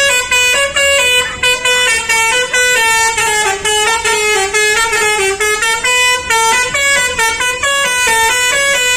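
Indonesian bus telolet horn of the Basuri type, a multi-trumpet musical air horn, playing a fast melody of short stepped notes that jump up and down without a break.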